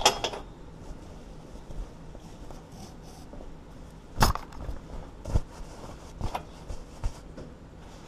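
Metal clanks and clicks from steel bolt cutters and a heavy steel padlock and chain being handled and the jaws set on the shackle. There is a sharp clank at the start, a louder one about four seconds in, then a few lighter knocks.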